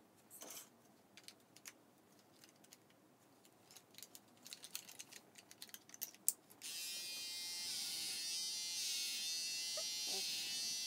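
A few light clicks, then electric hair clippers switch on abruptly about two-thirds of the way in and run with a steady buzz against short hair.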